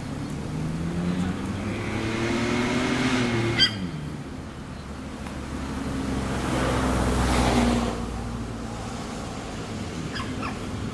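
Motor vehicles passing on a road: one engine swells and drops in pitch about three and a half seconds in, with a sharp click at that moment, and a second vehicle swells and fades around seven seconds in.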